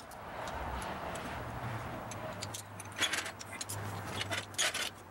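Scattered metal clinks and rattles, with two sharper clanks about three seconds and four and a half seconds in, over a faint low steady hum.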